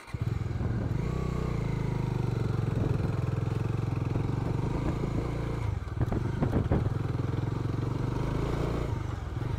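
Bajaj Dominar 250's single-cylinder engine comes in suddenly and runs steadily as the bike rides off across soft sand. A few knocks sound about six to seven seconds in.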